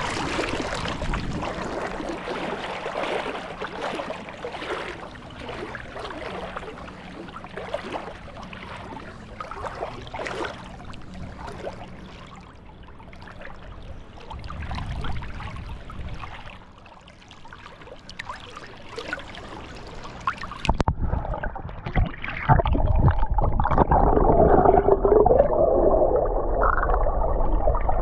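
Sea water and wind noise at the beach: a steady, rough wash. About 21 seconds in, the sound turns suddenly muffled and louder, with gurgling water.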